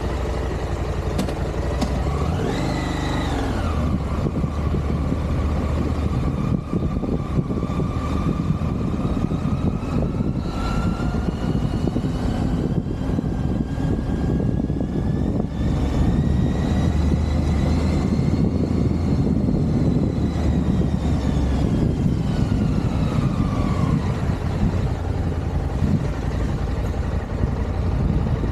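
Motorcycle engine under way. Its note climbs and drops quickly about two seconds in, then rises slowly through the middle and falls away again, over a steady low rumble.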